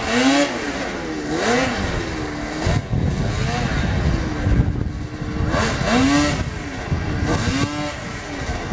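Snowmobile engine revved up and down in repeated bursts, about five times, with a steadier stretch about midway, as the sled sits stuck in deep snow on the steep climb.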